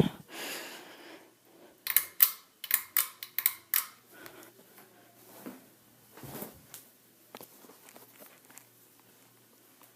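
Ceiling fan's pull-chain speed switch being worked: a quick run of sharp clicks and chain rattle about two seconds in, then a few softer knocks. Under it is the faint low hum of the fan motor, which has a slight buzz.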